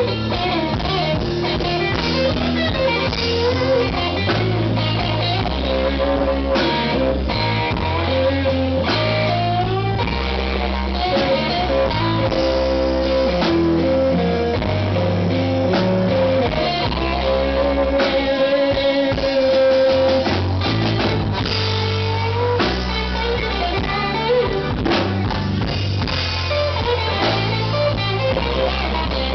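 Live blues-rock band: an electric guitar plays a solo with long held, bending notes over bass and drum kit.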